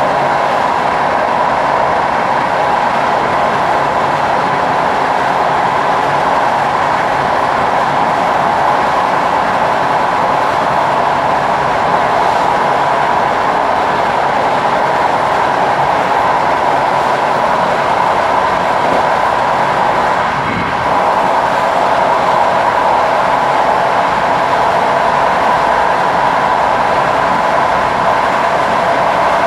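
Passenger train running steadily along the line, a continuous rolling rail noise that dips briefly about twenty seconds in.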